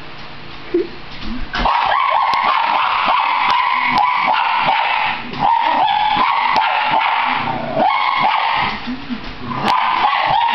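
Welsh terrier whining and yipping in high-pitched, excited bursts, starting about a second and a half in, with two short pauses; she is reacting to dogs she sees on the TV screen.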